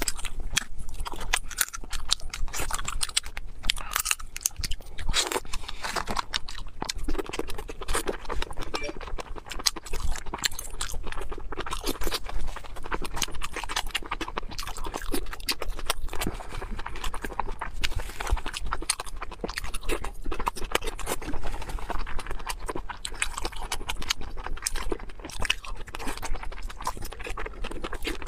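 Close-miked eating sounds: a person chewing shrimp and braised squid, giving a dense, irregular run of mouth clicks and crunches.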